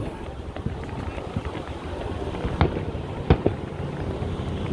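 Distant fireworks going off: a low rumble with scattered small cracks and two louder bangs in the second half.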